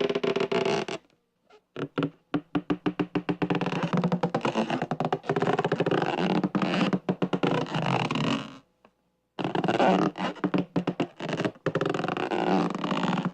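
Long, drawn-out creaking made of rapid clicks that run together into a rasping, pitched groan. It comes in three stretches, with a short break about a second in and another about nine seconds in.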